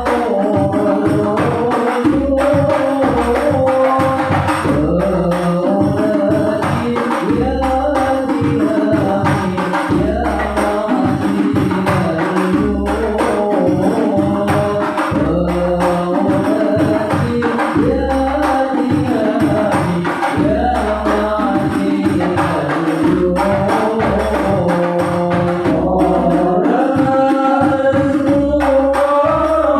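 Group singing of Islamic sholawat accompanied by steadily beaten frame drums, the low drum strokes keeping a regular rhythm under the melody.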